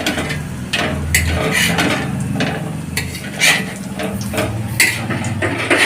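A metal spatula clinking and scraping against an iron tawa in a string of irregular sharp knocks as fish-roe patties are turned over, with oil sizzling underneath.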